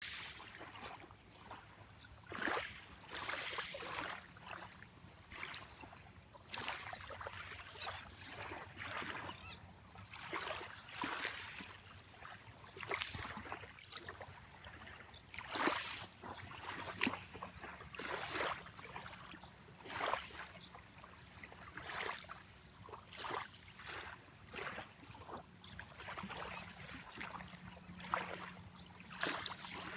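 Small sea waves lapping and splashing at the water's edge, an uneven splash every second or two.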